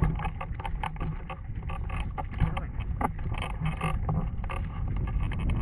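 Wind buffeting the microphone of a camera fixed to a hang glider's wing, a rumbling hiss with scattered irregular rustles and taps.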